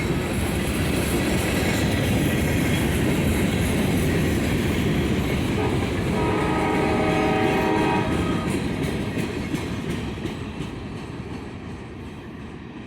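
CSX freight train rolling past with a loud, steady rumble of wheels on rail. The locomotive horn sounds once for about two seconds around six seconds in, and the rumble fades near the end as the train moves away.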